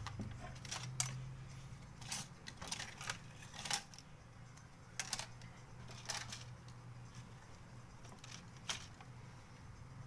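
Scattered light clicks and taps of small tools and plastic phone parts being picked up and set down on a workbench, about ten in all at irregular intervals, over a steady low hum.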